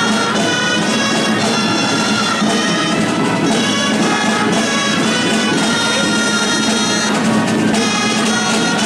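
Catalan folk street band playing a lively dance tune: loud, nasal reed pipes over a steady low drone, with drums keeping the beat.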